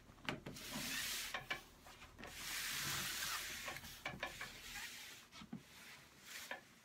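A car seat being turned around on a cardboard sheet on a wooden tabletop: two spells of scraping and rubbing, the longer one starting about two seconds in, with a few knocks.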